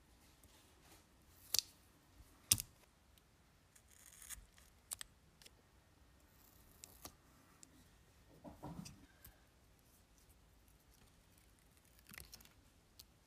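Faint handling sounds of double-sided tape being pressed onto a lithium-polymer pouch battery: a few sharp clicks, a short rubbing scuff about two-thirds through, and a brief crackle near the end as the tape's paper backing is peeled.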